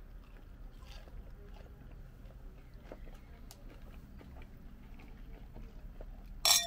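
Two wine glasses clinked together in a toast: one bright clink near the end that rings on briefly at several clear pitches. Before it, a few faint scattered clicks.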